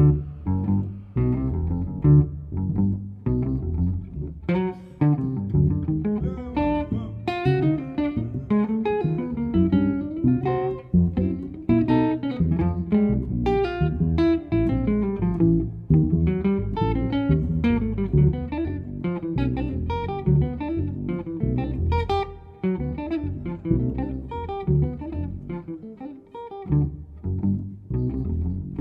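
Live jazz duo of amplified archtop guitar and double bass: quick picked guitar lines over a moving bass part.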